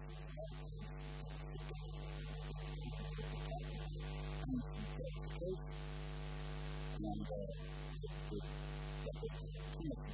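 Steady electrical mains hum, buzzy with many evenly spaced overtones, with faint indistinct sounds flickering over it.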